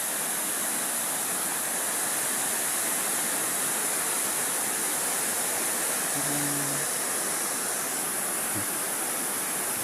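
Waterfall rushing: a steady, loud, even roar of falling water with no change throughout.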